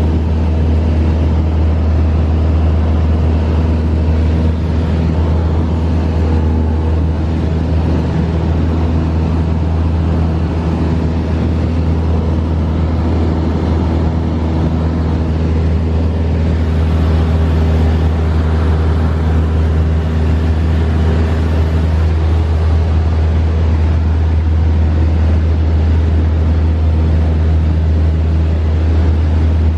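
Light training plane's engine and propeller droning steadily, heard from inside the cabin in flight.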